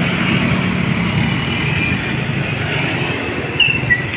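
Motorcycle engine running with wind and road noise while riding along a road. Two short high chirps sound near the end.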